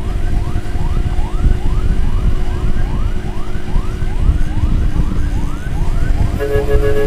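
Emergency-vehicle siren sounding in quick rising sweeps, about two a second, over a heavy low rumble of road and wind noise; a steady horn-like tone joins near the end.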